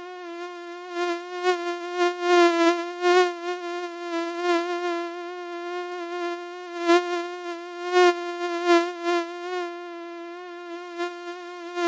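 Mosquito wing whine: one steady high buzz with a slight waver, swelling louder and fading back several times as if the insect drifts close to the ear and away.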